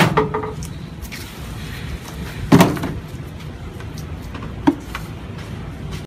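Thumps and knocks as armfuls of cut weeds and brush are loaded into the back of a cargo van: one heavy thump about two and a half seconds in and a sharper knock near five seconds.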